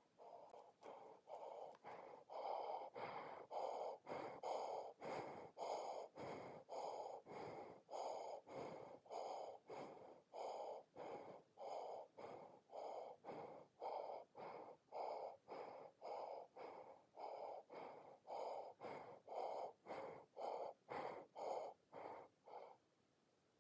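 Fast, rhythmic breathing through a military-style gas mask and its filter canister, about two breaths a second.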